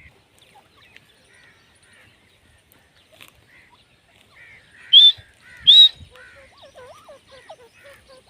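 Grey francolin giving two loud, shrill calls, each a short note sweeping upward, under a second apart in the middle, among fainter scattered bird chirps and lower warbling calls near the end.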